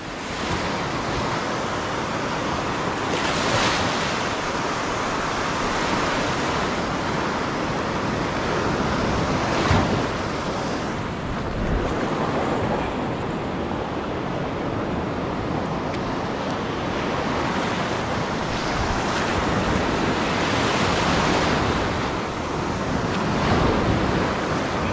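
Ocean surf breaking on the shore, a continuous rush that swells and eases every several seconds, with wind buffeting the microphone. A brief thump about ten seconds in.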